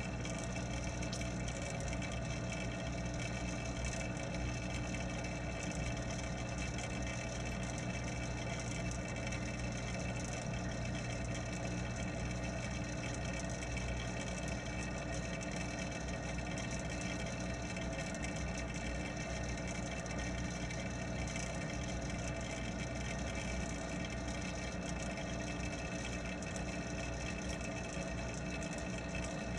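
Steady hum of the pond's water pump and filter running, heard through an underwater camera, with several fixed tones over a constant wash of water noise.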